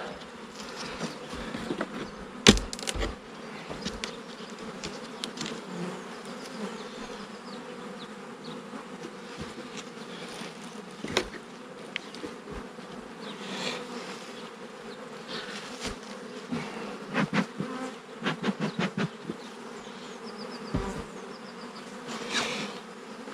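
A honeybee colony buzzing steadily at an opened hive, with a few sharp knocks and clicks of wooden hive parts being worked, the loudest about two and a half seconds in.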